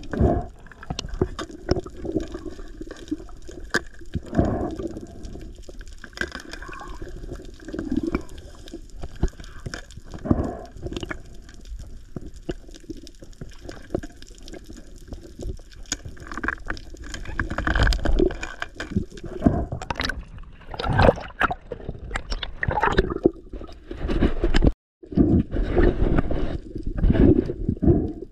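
Underwater sound picked up by a diver's camera: water swishing and gurgling around it, with many scattered clicks, the swells getting louder in the second half. The sound cuts out for a moment near the end.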